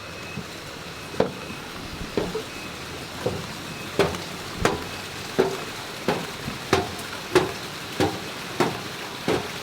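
Footsteps going down a flight of steps at a steady pace, about one and a half steps a second, starting about a second in, over a steady hiss of rain and running water.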